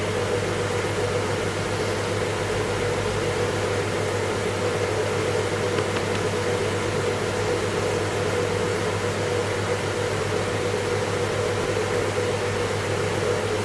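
Steady whir of a fan with a low hum beneath it, unchanging.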